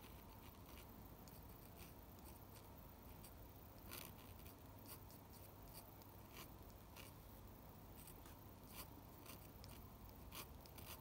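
Faint scratching of a steel dip-pen nib drawing ink lines on paper, in many short, irregular strokes.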